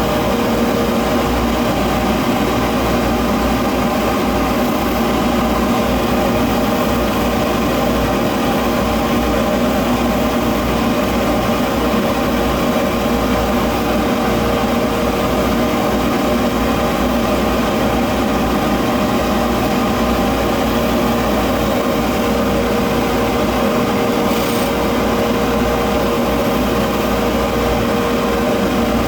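Electric polishing motor, such as a buffing wheel, running steadily while brass door hardware is polished, with a constant hum and a steady mid-pitched tone.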